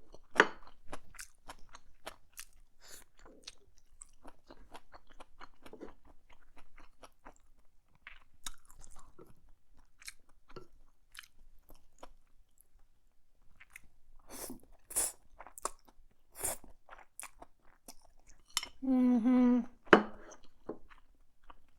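Close-miked chewing and wet mouth clicks from a mouthful of black bean noodles, mushrooms and shrimp, with a few louder crunching bites about two-thirds of the way through. Near the end comes a short hummed "mmm".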